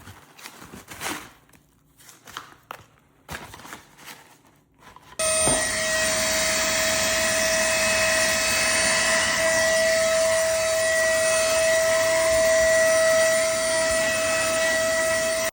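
Light rustling and clicks of small parts being handled, then about five seconds in a small motor starts abruptly and runs with a steady, high whine: the Brigii 3-in-1 cordless mini vacuum running.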